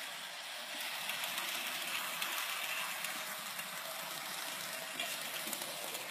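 Model freight train running on the layout track: a steady rushing whir of the motor and wheels on the rails.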